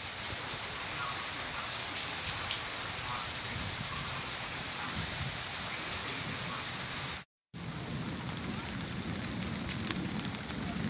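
Steady rain falling, an even hiss, broken by a short dropout about seven seconds in; after it the rain carries more low rumble.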